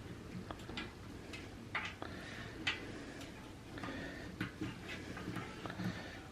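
Scattered light clicks and knocks of metal bed-frame parts being handled and fitted together, a few each second.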